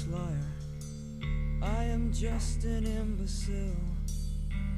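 Background music: a song with guitar, dipping briefly and coming back fuller about a second in.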